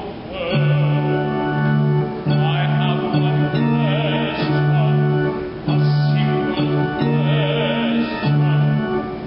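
Operatic singing with vibrato over an instrumental accompaniment of sustained low chords, broken by short gaps.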